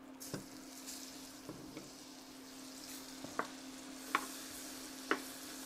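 Sliced onions sizzling steadily in a hot cast iron skillet; the sizzle starts just after they drop in. A utensil stirring them taps and scrapes against the pan several times, and a faint steady low hum runs underneath.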